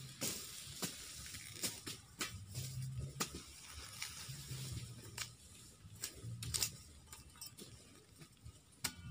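A machete chopping sugarcane stalks: irregular sharp chops, about one a second, over a low wavering hum.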